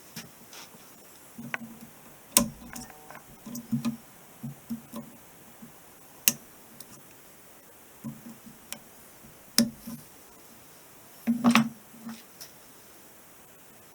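Irregular sharp clicks and knocks of metal parts and hand tools being handled while a universal joint is fitted into a driveshaft's telescoping tube, with a few louder knocks among lighter ticks.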